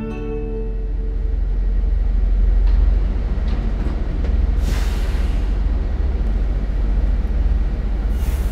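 City bus running: a steady low engine and road rumble that builds over the first few seconds, with two short bursts of hissing air, one about halfway through and one near the end.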